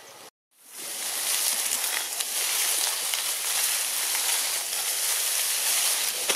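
Steady, dense high-pitched hiss of outdoor ambience with faint scattered crackles, setting in after a brief dropout at the very start.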